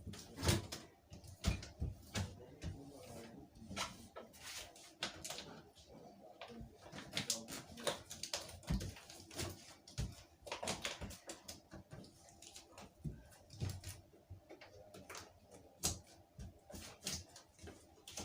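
Self-adhesive contact paper being folded over an edge and pressed down by hand: irregular crinkles, rubs and light taps.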